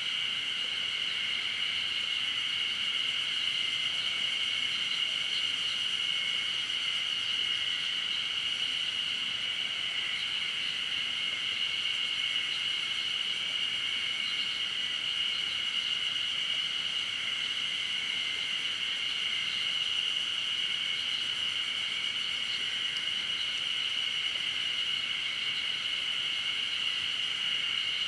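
A dense chorus of insects: a continuous high-pitched drone that holds steady without breaks.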